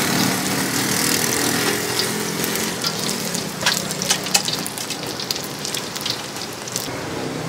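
Food deep-frying in a large steel pot of hot oil: a steady sizzle with scattered crackling pops, busiest from about two seconds in until near the end.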